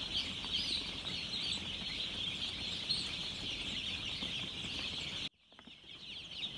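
Dense chorus of peeping from hundreds of three-day-old broiler chicks, a continuous high chatter of overlapping calls. About five seconds in it drops abruptly to a fainter chorus.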